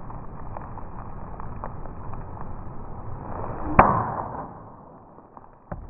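Slowed-down swing of a Cold Steel Bushman knife slicing through a thick cardboard silhouette target: a dull, muffled rush swells, then one sharp cut about four seconds in is the loudest moment, and it fades away after. A small click follows near the end.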